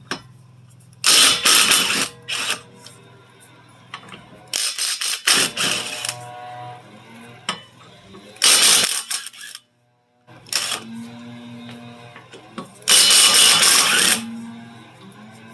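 Ryobi cordless impact wrench hammering lug nuts loose off a car wheel, in four short loud bursts with pauses between them.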